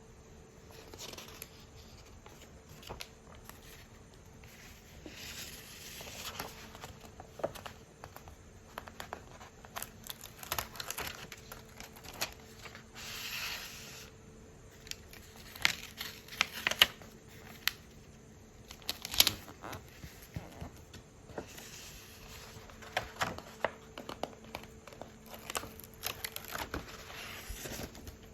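Paper and plastic packaging of a sticker card being unwrapped and handled: crinkling, tearing and rustling in short stretches, with many small taps and clicks. A faint steady electrical hum lies underneath.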